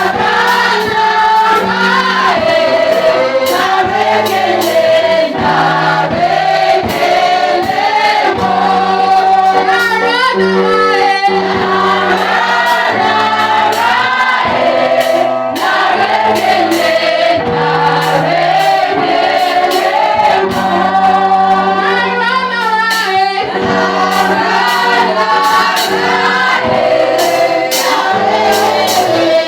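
Gospel worship song: singing with a choir over keyboard, bass and drums.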